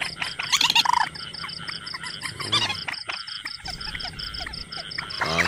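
Loud clucking bird calls, strongest about half a second to a second in and again briefly near the middle. Underneath is a steady high chirp pulsing about four to five times a second.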